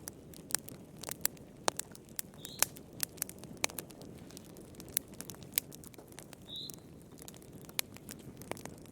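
Fire in a fireplace crackling: irregular sharp pops and snaps over a low, steady rumble of burning, with a brief high hiss twice.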